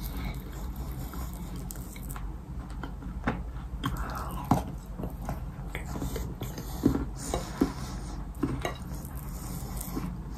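Baked clay cookies coated in wet clay paste being bitten and chewed: scattered crunches and crackles, with soft squishing as the cookie is dragged through the paste. A few sharp crunches stand out in the middle.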